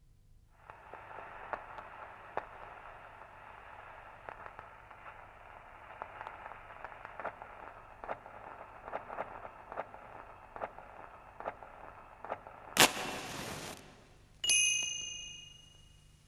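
Thin, crackling hiss like an old radio or worn recording, peppered with small clicks. Near the end comes one sharp click and a second of full-range hiss, then a single metallic ding that rings and fades.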